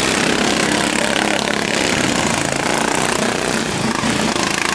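Modified-class racing lawnmower engines running hard, a loud, steady, rattling engine noise with no break.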